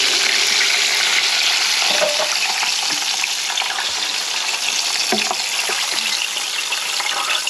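Chicken wings deep-frying in hot oil in a stainless pot: a steady crackling sizzle, with a few short metallic clinks of steel tongs about two and five seconds in.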